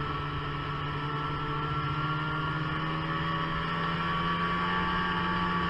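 Snowmobile engine running at a steady cruising speed, a constant drone with a higher whine above it.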